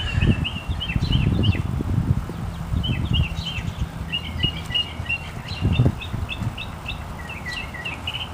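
Small birds chirping in quick runs of short high chirps, over a low rumble with a few dull thumps.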